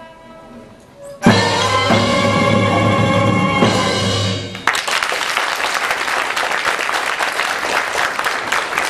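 A soft held note fades out. Then an orchestra of Turkmen folk instruments strikes a loud final chord, held for about three seconds, and audience applause breaks out as it ends.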